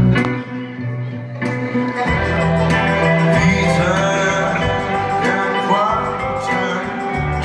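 Live amplified band music led by an electric guitar, with a low bass part that comes in about two seconds in and some gliding pitched lines in the middle.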